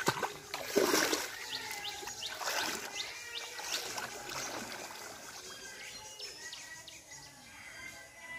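Pond water sloshing and splashing around a person's legs as he wades through it, loudest in the first second, with further sloshes about two and a half and four seconds in.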